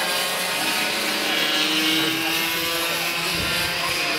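Racing go-kart engines running at high revs as karts pass on the track, with several engine notes overlapping and their pitch shifting as they go by.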